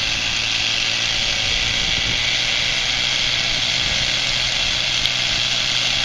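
Thunder Tiger 30 nitro RC helicopter's glow engine running steadily with the rotor turning, a high-pitched whine that holds an even pitch throughout.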